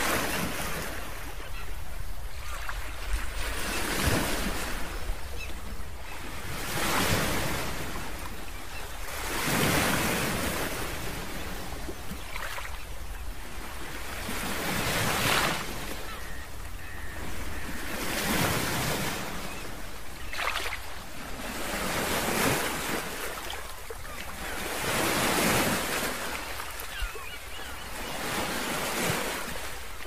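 Ocean surf: waves washing in, each swell rising and falling back every two to three seconds.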